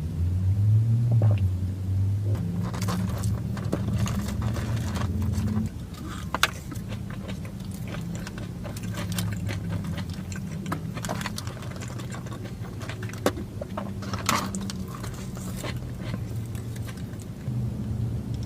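Eating sounds from fast food: scattered crackles and clicks of wrapper rustling and chewing over a continuous low hum.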